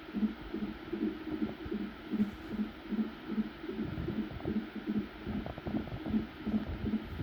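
Fetal heartbeat at 28 weeks through a Doppler ultrasound monitor: a fast, even pulsing beat of about two and a half beats a second, around 150 a minute. About four seconds in, a lower rumbling swish rises under the beats for a couple of seconds.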